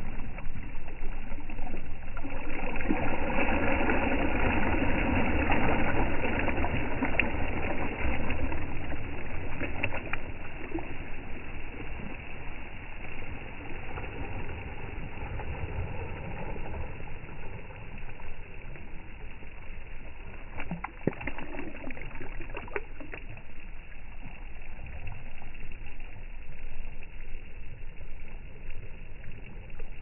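Small waves lapping and washing over a sandy, pebbly shore, over a steady low rumble. The wash is louder for the first several seconds and settles quieter after about eight seconds, with a few faint light ticks.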